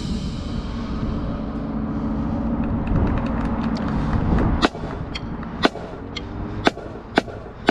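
Marching band holding a final chord after the drumline cuts off, heard at a distance over a low rumble, released abruptly about four and a half seconds in. Scattered sharp clicks and taps follow.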